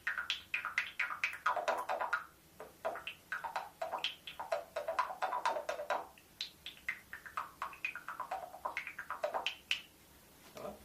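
Altai folk music performance: a fast, rhythmic run of quick plucked or struck notes, several a second, which stops about a second before the end.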